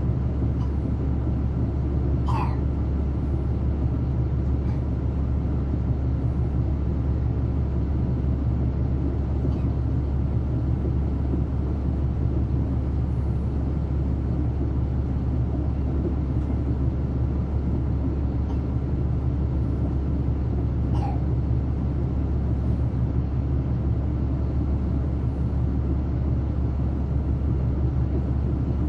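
Caterpillar C13 ACERT diesel engine of a NABI 40-foot transit bus, heard from inside the cabin, running at a steady speed with a low drone that neither rises nor falls. Two brief high squeaks come about two seconds in and again about two-thirds of the way through.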